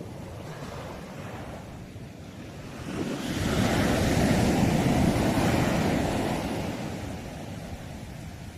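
Sea waves breaking and washing on the shore: one wave swells up about three seconds in, is loudest for a couple of seconds, then fades away. Under it runs a low rumble of wind on the microphone.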